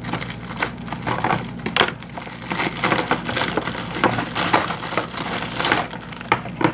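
Packaging being crushed and crumpled by hand: a dense, irregular run of crackles and snaps.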